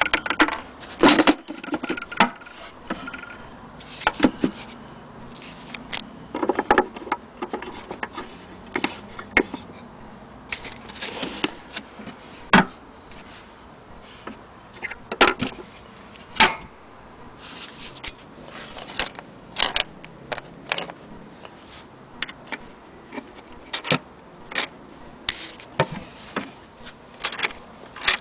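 Irregular clicks, taps and knocks of metal and wood as an antique Bradbury hand-crank sewing machine and its wooden case are handled, with no steady cranking rhythm.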